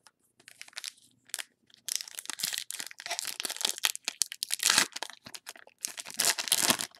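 Foil wrapper of a trading-card pack crinkling and tearing as it is pulled open by hand: a few faint rustles, then dense crackling from about two seconds in, loudest near the end.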